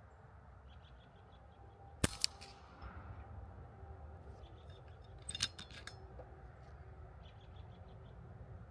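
A shrouded .22 PCP air rifle (RAW Micro Hunter) fires once about two seconds in: a sharp crack and a second click a moment later. A softer run of metallic clicks follows a few seconds after. Small birds chirp faintly in the background.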